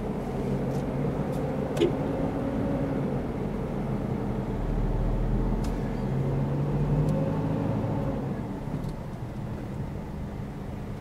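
Car engine and road noise heard from inside the cabin while driving at low speed. The engine note rises and falls twice as the car speeds up and eases off, with a sharp click about two seconds in.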